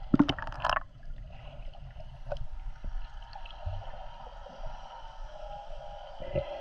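Muffled underwater ambience picked up by a submerged GoPro: a steady low rumble of moving water, with a burst of gurgling in the first second and a few faint clicks.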